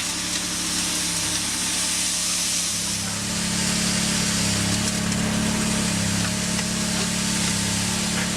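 A heavy machine's engine running steadily under a constant hiss, its hum growing louder about three seconds in.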